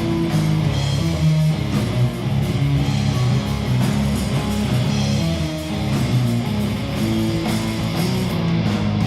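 Live rock band playing loud and steady: electric guitar and bass guitar over drums.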